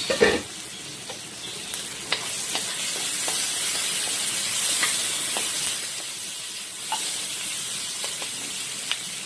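Pork, onion and tomato sizzling in a non-stick wok as a wooden spatula stirs them, with light scattered taps and scrapes of the spatula on the pan. A brief loud knock right at the start.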